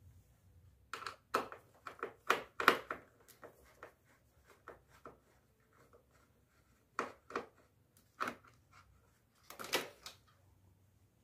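Sharp plastic clicks and knocks in irregular clusters as a screwdriver and hands work loose the black plastic remote-sensor bracket of a Daikin wall-mounted split air conditioner's indoor unit.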